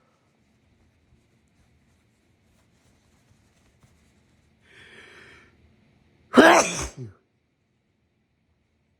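A single loud sneeze from someone with a lingering cold, about six and a half seconds in. It comes after a drawn-in breath about a second and a half earlier, and its voice falls in pitch at the end.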